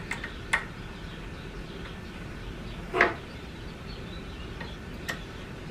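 A few small clicks and ticks as a screw is set by hand and driven with a Phillips screwdriver into the mount of a plastic coolant expansion tank, the loudest about three seconds in, over a low steady hum.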